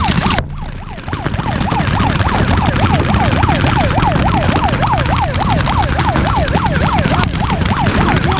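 A siren wailing in a fast up-and-down yelp, about three sweeps a second, over a steady patter of paintball markers firing.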